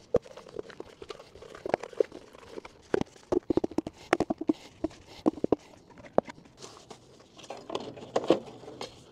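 A flexible corrugated plastic downspout extension being handled, stretched and bent by hand: irregular clicks and crinkles from the plastic, in a dense run in the middle and again near the end.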